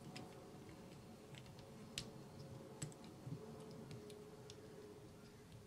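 A few faint, scattered clicks and taps of small model-kit parts being handled and pushed onto a scale model truck chassis, the sharpest about two and three seconds in.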